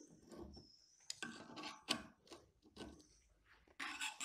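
Jaw of a Mitutoyo caliper scratching across a steel plate in short, irregular strokes, used as a scribe to mark out hole positions.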